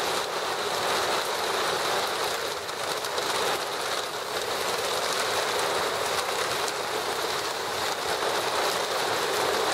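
Thunderstorm rain falling steadily, an even hiss with no breaks.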